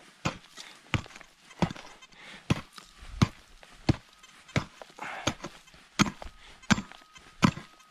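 Short-handled digging tool with a three-tined head striking hard, dry soil over and over, about eleven blows at a steady pace of roughly three every two seconds, breaking up clods while digging out a metal detector target.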